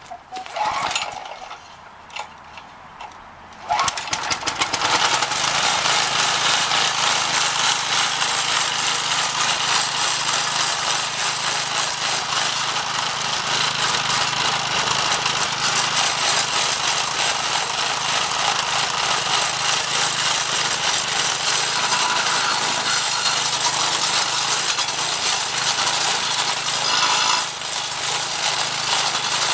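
Briggs & Stratton 4.5 hp vertical-shaft engine on a lawn edger being pull-started and catching about four seconds in, then running steadily at speed while its carbide-tipped saw blade grinds into a wooden tree stump, throwing chips. The sound eases briefly near the end.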